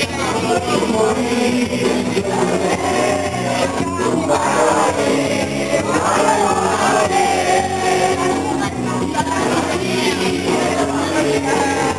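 Sega music from a live band, with singing over it.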